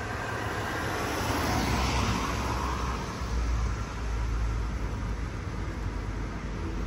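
Blue DR diesel railcar train passing through a station: a swell of running noise in the first few seconds, then a steady low diesel engine rumble that strengthens from about three seconds in.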